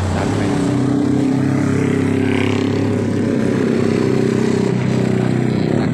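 Large truck's engine idling, a steady low hum.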